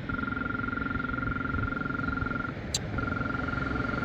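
Polara EN2 crosswalk button's vibrating tactile arrow, a steady buzzing rumble, stops for a moment with a sharp click and then starts buzzing again. With the speaker dead, the vibration is the only sound the button makes, and it vibrates constantly instead of stopping, a sign of a faulty button.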